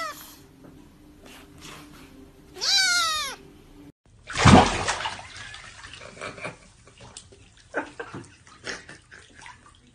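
A grey Scottish Fold kitten meows once, a single call rising and then falling in pitch, about three seconds in. After a cut comes a sudden loud noise, then scattered softer knocks and clicks.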